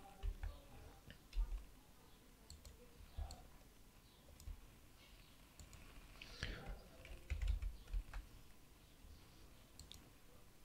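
Faint, scattered computer mouse clicks and keyboard taps, irregular and a second or so apart, with a few soft low thumps.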